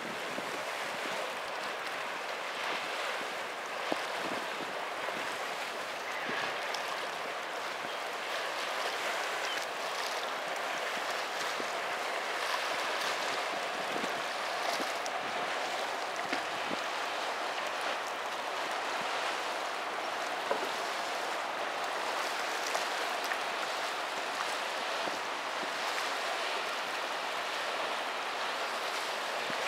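Broad, fast-flowing river water rushing steadily, with a few faint clicks and ticks along the way.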